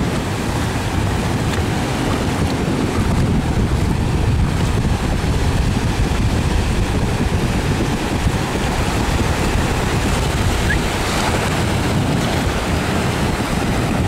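Small waves washing in over a shallow sandy beach, with wind noise on the microphone; a steady sound throughout.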